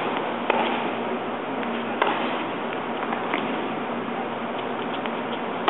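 Tennis rally: a few sharp pops of the ball struck by rackets and bouncing on the court, the loudest about two seconds in, over a steady background hiss.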